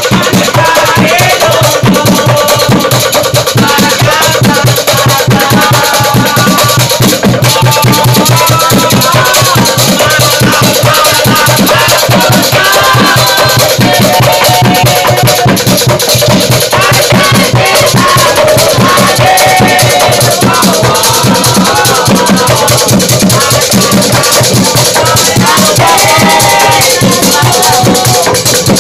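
Obrog sahur group's live street percussion, a steady driving drum beat, with a group of young men chanting a football-supporter-style song over it.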